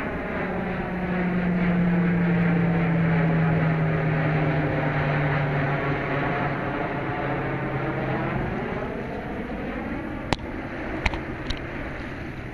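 Low-flying airplane passing overhead. Its drone is loudest a couple of seconds in, then drops in pitch and fades as it goes by. A few sharp clicks come near the end.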